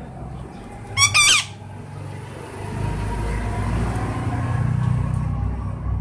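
A pet parakeet gives one short, harsh squawk about a second in. From about three seconds a low, steady rumble comes up underneath and keeps going.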